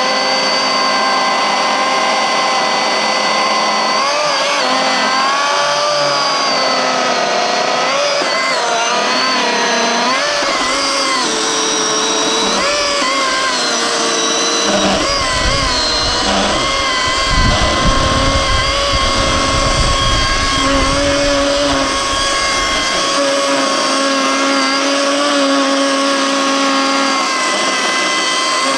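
Milwaukee M18 Fuel cordless chainsaw running under load as its chain cuts deep through a thick log: a steady electric motor whine whose pitch dips and wavers as the cut bogs it down, with a rougher, lower rumble joining about halfway through.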